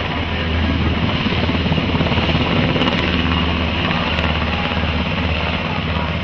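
Navy MH-60S Seahawk helicopter lifting off and climbing away low, its rotors beating in a steady low throb over the turbine engine noise.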